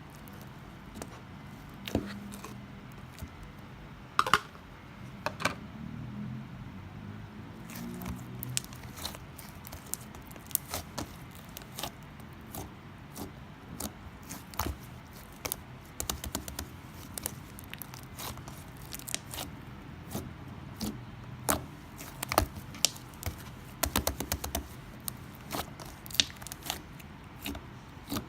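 Slime being squished and stretched by hand, giving many scattered sharp clicks and pops that come thicker in the second half.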